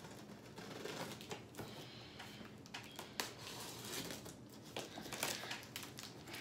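Scissors blade slitting the packing tape along the seam of a large cardboard box: irregular scraping strokes with scattered clicks, one sharper click about three seconds in.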